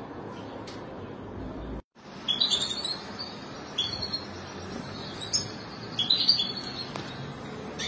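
European goldfinches chirping in short, high bursts: four or five clusters of calls, starting just after a brief drop-out in the sound about two seconds in. Before the drop-out there is only a steady low background hum.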